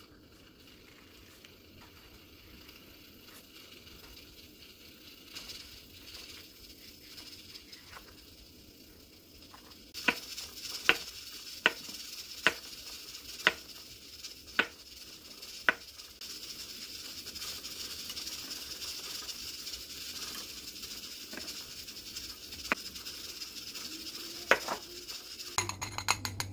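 Kitchen knife slicing through an avocado and knocking on a wooden cutting board, about seven sharp taps roughly a second apart, over a steady hiss. Near the end come a few light clicks as blueberries tumble from a mesh sieve into a glass bowl.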